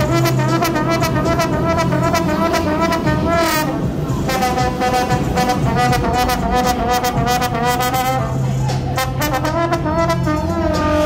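Trombone playing a melody live, with held notes that waver and bend in pitch, over a backing track with a steady beat from a portable speaker.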